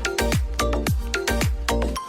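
Upbeat background music with a steady beat: a deep kick drum about twice a second under a bright melody.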